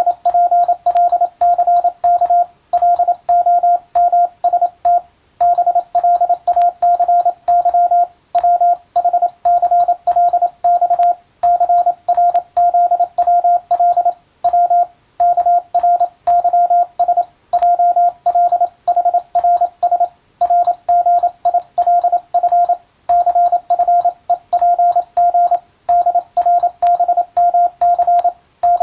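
Morse code practice tone: a single steady pitch keyed on and off in rapid dots and dashes, in groups broken by short pauses about every three seconds.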